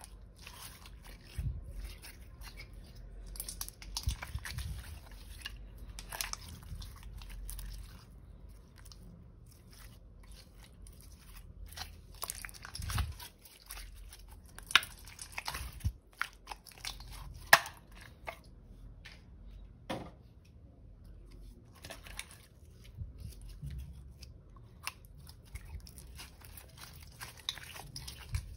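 Clear glitter slime being squeezed and stretched by hand: wet squelching with irregular sticky clicks and pops, one much louder snap about two-thirds of the way through.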